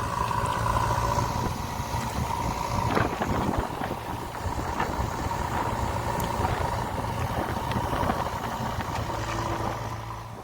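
Diesel engine of a JCB 3DX backhoe loader running steadily, with a steady high-pitched whine over it.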